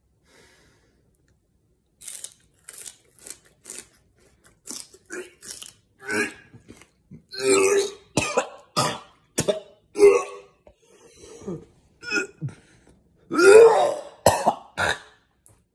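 A man coughing and gagging in a string of short harsh bursts, sparse at first and then louder, the heaviest about halfway through and near the end.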